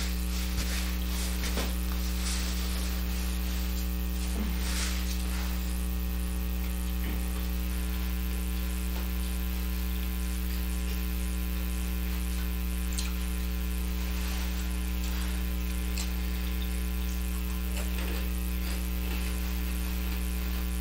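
Steady electrical mains hum with its stacked overtones, picked up in the recording, with a few faint handling clicks and rustles in the first five seconds.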